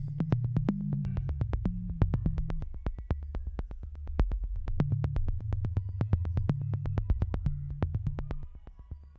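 Electronic background music: a synthesizer bass line under a quick, steady drum-machine beat, fading out near the end.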